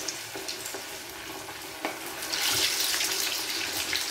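Marinated chicken pieces deep-frying in hot oil in a pot: a steady sizzle with scattered crackles, growing louder a little past halfway.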